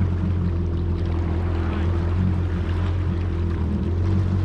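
Yamaha VX Cruiser HO WaveRunner's four-stroke engine running at a steady pace, a constant low drone that neither rises nor falls.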